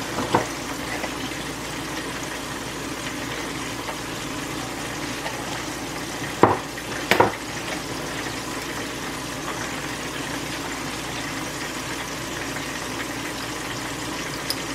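Flour-dredged chicken pieces frying in a skillet of oil on medium heat, a steady bubbling sizzle. A few sharp taps break in, one near the start and two about halfway through.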